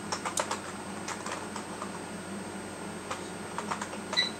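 Typing on a computer keyboard: irregular key clicks, a quick run of keystrokes at the start and scattered ones after. A short high beep comes near the end.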